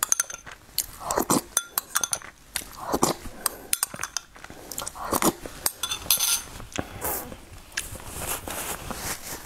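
A metal spoon clicking and scraping against a small glass bowl, with a ring or two of clinking glass, between close-miked eating sounds. A paper napkin rustles near the end.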